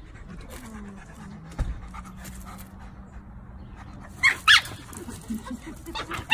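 Dogs facing off over a bone: two sharp, high-pitched yips in quick succession a little after four seconds in, another short one near the end, with dog panting around them.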